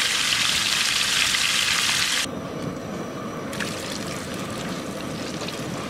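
Whole cabrilla deep-frying in very hot oil in a wok, sizzling loudly as the oil is worked over it with a skimmer. About two seconds in, the sound cuts off suddenly and gives way to the quieter sizzle and crackle of huayro potato wedges frying.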